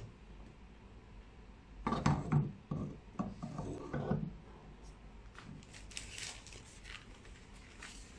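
Metal laser handpiece being lowered into a clear acrylic holder: about two seconds of rubbing and knocking, then a few faint clicks.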